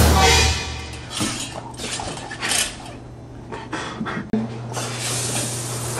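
Metal shower-curtain rings scraping and clinking along a metal rod as a curtain is yanked, loudest at the very start, then in a string of shorter pulls.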